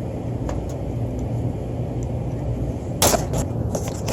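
Steady low rumble of wind on the microphone, with a brief rustle about three seconds in.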